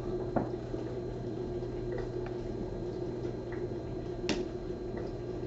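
Steady low hum of room background with a few faint clicks, the sharpest about four seconds in.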